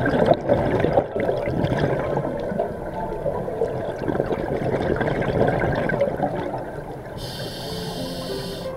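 Scuba diver's exhaled breath leaving the regulator underwater: a dense rush of bubbles gurgling and crackling, loudest for the first six seconds or so, then easing off.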